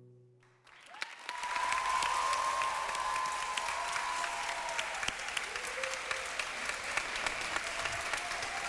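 The last note of a soft ballad fades out, and about a second in a studio audience breaks into steady applause, with a long high cheer riding over the clapping.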